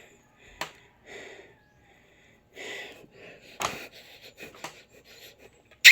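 A person breathing hard and panting after exercise, with a few sharp clicks, the loudest about three and a half seconds in and another at the very end.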